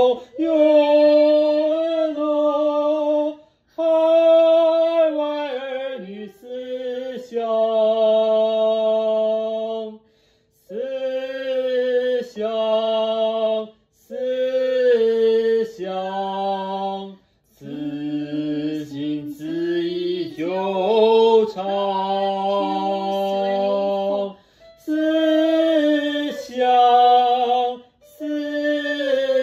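A single voice singing a song section unaccompanied, practising it: steady held notes in short phrases, with brief breaks for breath between them, about six times.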